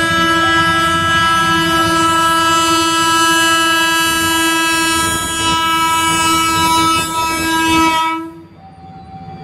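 KRL commuter electric train's horn sounding one long, unbroken blast over the rumble of the moving train, cutting off suddenly about eight seconds in.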